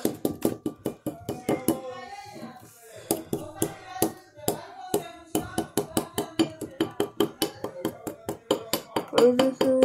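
Small toy hammer repeatedly tapping a plaster dinosaur-egg dig kit to chip it open: quick, sharp knocks at about four a second.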